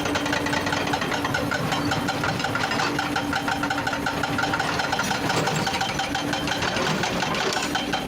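Excavator's diesel engine running steadily with a fast clatter, with a steady whine over it.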